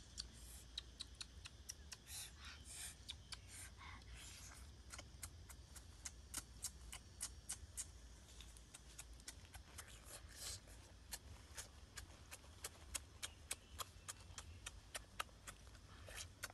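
Fire-roasted eggshells being cracked and peeled by hand: faint, irregular crisp clicks and crackles, many a second.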